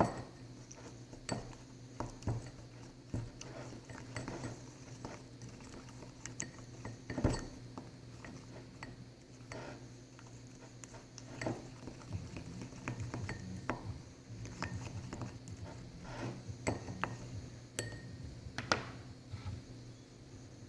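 Scattered light clinks and taps, like a utensil against a dish, at irregular intervals over a steady low hum.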